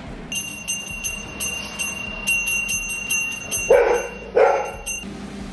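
Brass puja hand bell rung steadily, about three clear rings a second, which stop about five seconds in. Two short, loud calls break in near the end.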